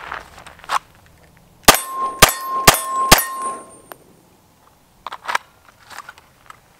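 Four 9mm shots from an FN 509 Tactical pistol, about half a second apart, with a steel target ringing in a steady tone under them. A few light clicks follow as the pistol goes back into its holster.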